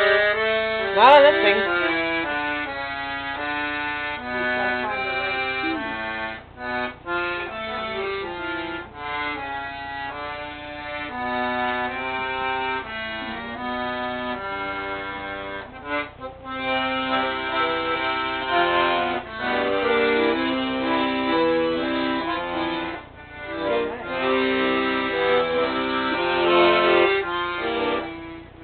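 Piano accordion playing a tune: a melody of changing notes over held chords, pausing briefly twice in the second half.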